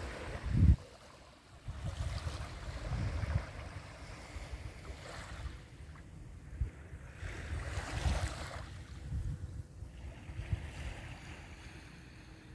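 Wind buffeting the microphone in irregular gusts, the strongest about half a second in, over the soft wash of small waves lapping on a sandy shore.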